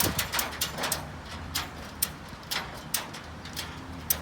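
Ratchet buckle on a car-hauler's wheel strap being cranked tight: a run of sharp clicks, two or three a second and unevenly spaced.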